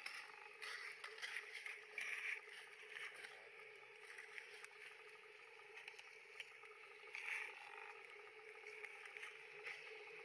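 Faint background ambience: a steady low hum with scattered soft clicks and a few brief louder noises, the two strongest about two seconds in and about seven seconds in.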